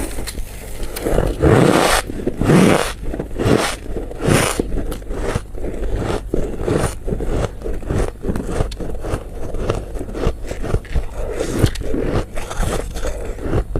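Close-up crunching and chewing of squeaky white ice. A few loud bites come in the first few seconds, followed by quick, steady chewing.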